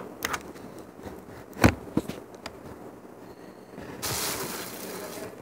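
Handling noises: a sharp knock about one and a half seconds in, a lighter click just after, then about a second of rustling near the end.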